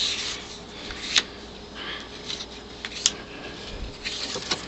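Postcards being handled: soft rustling and sliding of card stock, with two sharp clicks, about a second in and about three seconds in.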